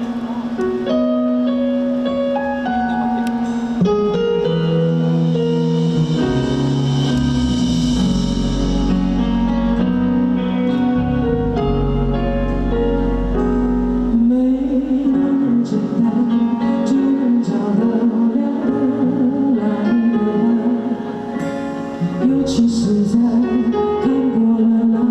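Live pop music led by guitar, with a voice singing long, wavering notes from about halfway through.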